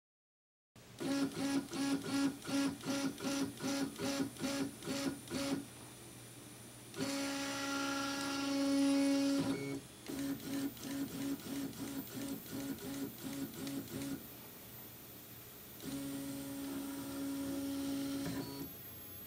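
A Kysan 1124090 1.8-degree stepper motor, micro-stepped by Pololu driver boards, drives a 3D printer's x-axis carriage. Its buzzing whine comes as a string of short moves, about two and a half a second, then a longer steady move. The whole sequence plays twice, first on the A4988 (1/16-step) driver and then on the DRV8825 (1/32-step) driver.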